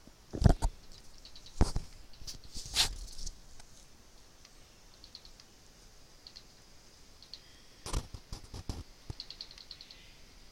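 Computer mouse clicking: several sharp clicks in the first three seconds and two more about eight seconds in, with runs of faint quick ticks between them.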